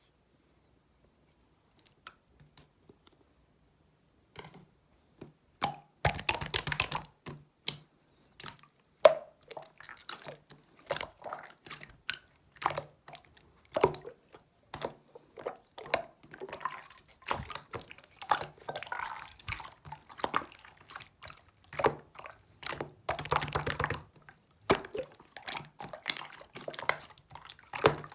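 Kitchen food-preparation sounds: irregular light taps and clicks of utensils and containers, with wet liquid sounds. After a quiet start, the handling picks up about six seconds in, with two longer noisy stretches about six and twenty-three seconds in.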